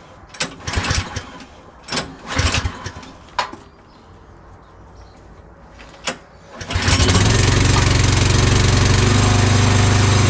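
A few sharp knocks and clatters, then an engine starts about seven seconds in and runs on loud and steady.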